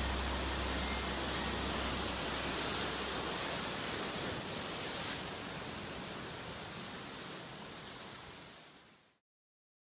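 Steady rushing noise at the close of a music track: a low bass note dies away in the first couple of seconds, then the noise slowly fades and cuts to silence about nine seconds in.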